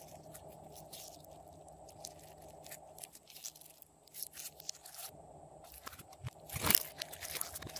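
Pink pearl slime being stretched and squished by hand, giving off soft sticky crackles and small pops, with a louder crackling burst about two-thirds of the way through.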